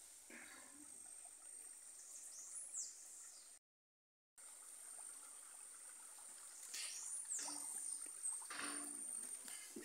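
Water trickling into a concrete fish tank, under a steady high insect tone. The sound drops out completely for under a second about four seconds in.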